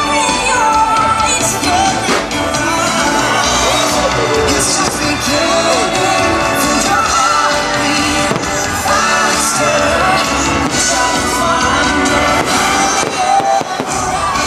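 Loud fireworks-show soundtrack music with aerial firework shells bursting over it in several sharp bangs and crackles.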